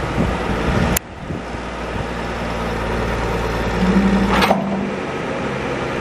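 John Deere backhoe loader's diesel engine running steadily. The sound breaks off abruptly about a second in and comes back, and a short stronger hum near four seconds ends in a brief noise.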